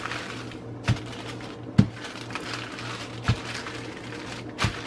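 Wooden rolling pin worked over dough on parchment paper on a tabletop: paper rustling with four dull knocks of the pin against the table, over a steady low hum.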